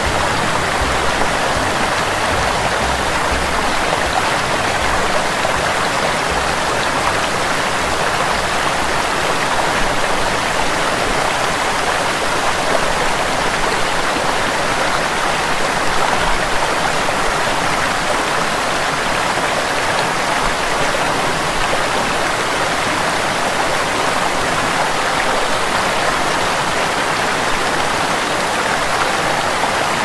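Small waterfall tumbling over rock ledges: a steady, even rush of water.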